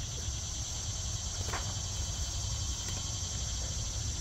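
Steady, high-pitched chorus of summer insects, with a low rumble underneath and one short sharp sound about a second and a half in.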